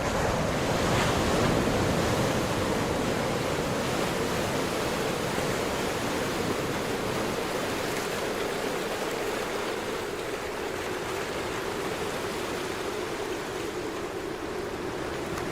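Steady, unbroken rush of surf washing on the beach.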